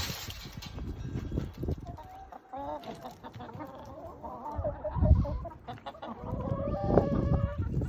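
Sex Link hens clucking, a run of short pitched calls starting about two seconds in, with a few low thumps.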